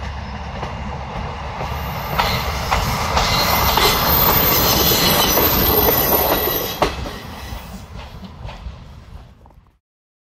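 Diesel railcar passing close by: a low running rumble with the wheels knocking over rail joints and a thin high wheel squeal, building to its loudest in the middle and then fading as it goes away. The sound cuts off suddenly near the end.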